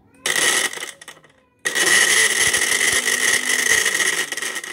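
Cosmos CB-282P electric blender motor running with its small spice-grinding cup fitted and empty: a short burst of about half a second, then a second run lasting nearly three seconds with a steady high whine. Very loud.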